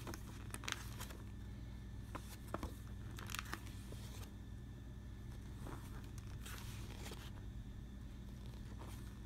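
Pages of a paper rule booklet being turned by hand: a few soft rustles and flicks of paper over a faint steady low hum.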